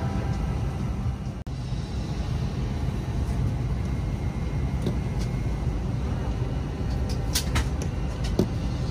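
Steady low rumble of a vehicle, with a brief dropout about one and a half seconds in and a few short clicks near the end.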